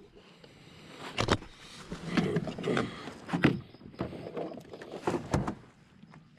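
Handling noise aboard a plastic fishing kayak while a freshly caught bass is laid on a measuring board: irregular sharp knocks and thumps with rustling in between.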